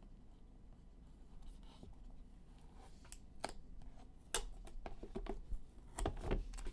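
Faint rustling and scattered sharp clicks as a sealed trading-card box and its pack are handled and opened.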